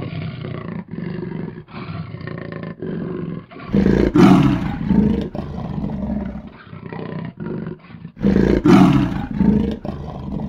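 Big cat vocalizing: a run of short calls with brief breaks between them, then two louder roars, about four seconds in and again about eight seconds in.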